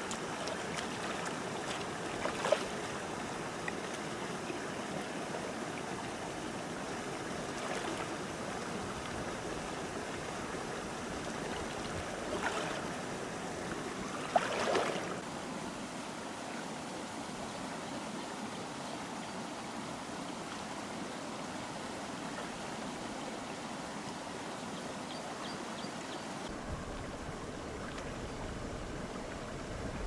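Shallow river water running steadily, with a few brief splashes from hands moving in the water, the loudest about a third and halfway through.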